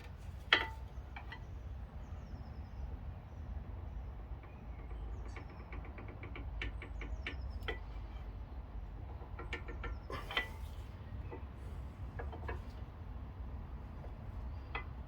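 Scattered metal clicks and light knocks from a tool levering the pistons of an Audi Q7 front brake caliper back into their bores, over a low steady rumble. A sharp click about half a second in is the loudest, with further bunches of clicks midway and about two-thirds through.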